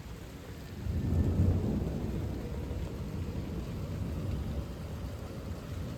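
Thunder rumbling: a low roll that swells about a second in, then keeps rolling at a lower level.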